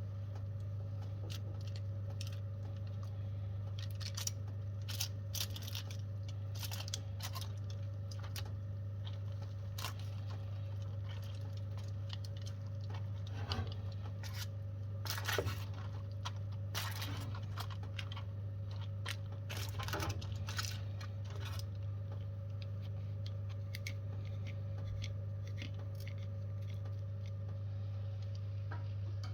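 Faint crunching and scraping of food being handled, in scattered short bursts over a steady low hum.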